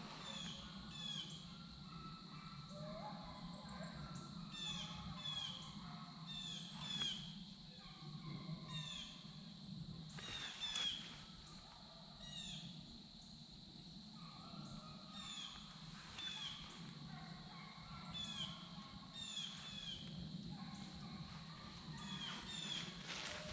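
Birds calling in the woods: many short, high, falling chirps repeated over and over, with some lower call notes and a steady high hum beneath. Two brief louder knocks stand out, about a third of the way through and about halfway.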